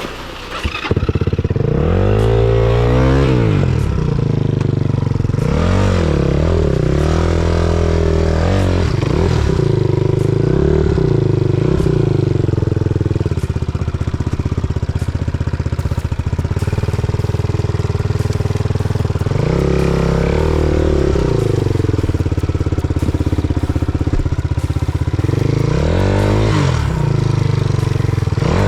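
Enduro motorcycle's single-cylinder four-stroke engine running under throttle, the revs rising and falling again and again, with a few steadier stretches between.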